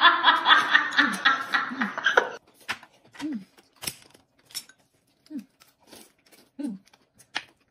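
A loud pitched, rhythmic sound that cuts off abruptly about two and a half seconds in, then eating sounds: noodles being slurped and chewed, with scattered clicks of chopsticks on a plate and a few short low sounds.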